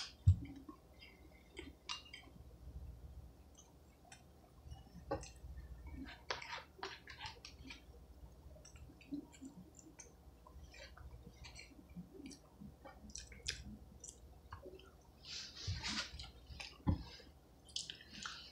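Close-up chewing and wet mouth smacking of a person eating a hamburger: irregular soft clicks and squishes. A few low thumps stand out, one just after the start and two near the end.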